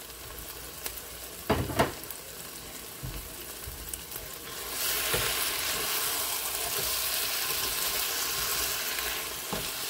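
Burger patties and onions sizzling in a nonstick frying pan, with two sharp knocks about a second and a half in. The sizzle grows louder about five seconds in as a spatula stirs the onions and crumbled patty.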